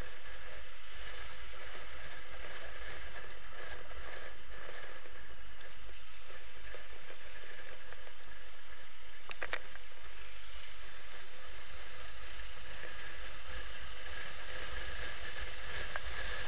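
Steady wind rush and road noise on a camera riding on a moving motorcycle, with a deep buffeting rumble underneath. A short click about nine and a half seconds in.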